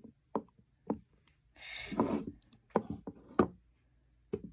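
Sticky, not yet fully set glue slime being pulled and squeezed with bare fingers in a bowl: a string of short wet clicks and pops, with a longer squelching stretch about halfway through.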